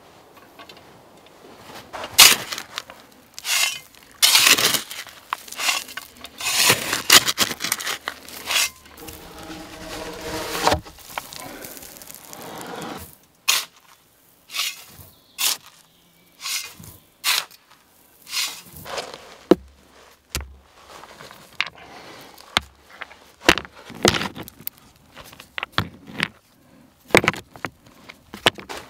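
A small folding shovel digging in loose sand: irregular gritty scrapes and scoops, some followed by a longer rush of sand being thrown or poured off the blade.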